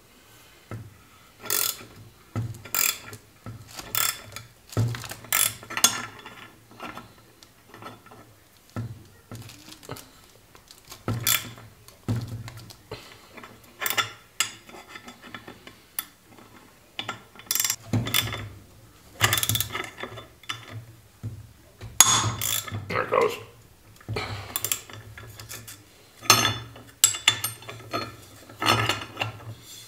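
Ratcheting wrench clicking in short, irregular bursts as it turns the forcing screw of a pulley puller, pressing the pulley off a power steering pump shaft.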